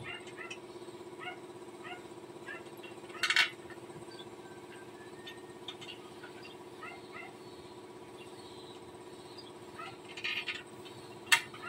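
PowerStar 2 HP air compressor running with a steady hum. Scattered short high chirps sit over it, and there are two brief hissy bursts, about three seconds in and again near ten seconds.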